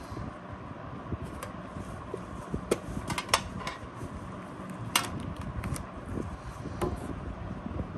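A small hinged tin-plate card tin being handled and its lid pried open: a scatter of light metallic clicks and taps, the sharpest about five seconds in, over a steady low background noise.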